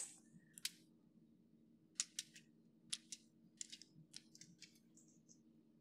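Faint scattered clicks and light scrapes of metal skewers being handled as marinated chicken pieces are threaded onto them, mostly from about two seconds in, over a low steady room hum.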